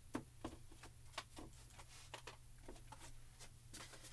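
Faint, irregular small clicks and light taps, roughly three a second, over a low steady hum.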